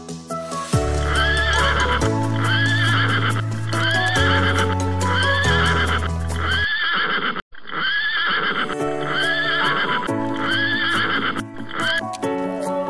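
Pony neighing in short arching calls, repeated about once a second, over background music.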